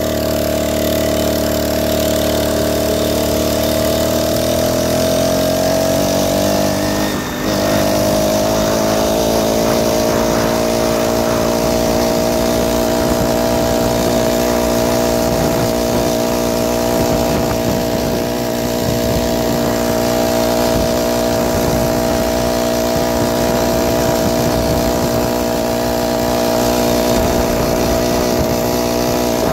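49cc four-stroke motorized bicycle engine running steadily. Its pitch rises over a few seconds as it speeds up, dips briefly about seven seconds in, then holds a steady higher note.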